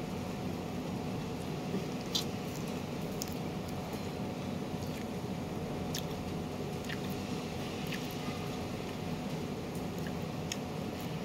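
A person chewing sweet corn kernels, with a scattering of short sharp mouth clicks, over a steady background hum.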